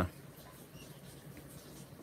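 Low, steady room noise in a pause between speech, with a faint short high chirp about a second in.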